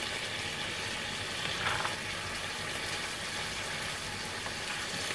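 Yogurt-marinated chicken tikka cubes sizzling steadily in oil in a grill pan as the marinade gives off its water, which is being cooked dry. A spatula scrapes the pan briefly a little under two seconds in.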